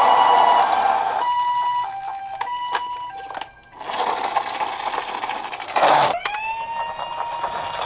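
Two-tone ambulance siren in the Japanese 'pee-poh' pattern, stepping between a high and a low tone about every half second. Near the end a burst, then a siren tone rises and holds steady.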